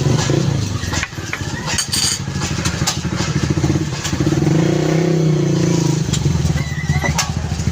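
Motorcycle engine running with a steady pulsing note, growing louder with a slight rise and fall in pitch around the middle.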